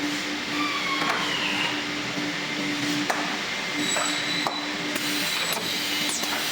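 Steady machine hum with a few sharp clacks from a four-corner PVC window-profile welding machine working through its cycle with the profile clamped in.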